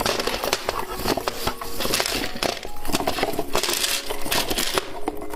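Plastic candy packaging crinkling and crackling as gummy candies are handled and unwrapped, a dense run of sharp crackles close to the microphone.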